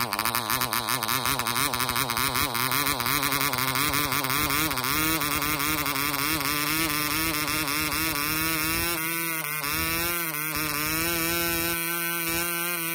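Yin Yan 2.47 cc model diesel engine running at full speed with its propeller, a high buzzing note. The note wavers unevenly at first, then rises slightly and settles to an even pitch as the compression adjuster on top of the head is turned.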